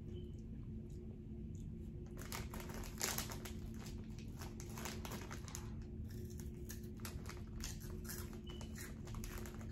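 Foil snack bag crinkling as a hand rummages inside a Cheetos bag for chips, in irregular crackles starting about two seconds in, loudest around three seconds. A faint steady hum runs underneath.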